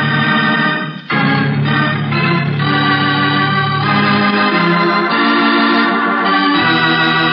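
Organ music bridge in a radio drama: sustained chords with a short break about a second in, then held notes moving to new pitches.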